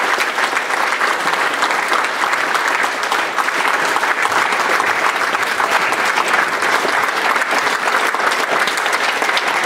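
Audience applauding, with the performers on stage joining in: many hands clapping in a dense, steady stream.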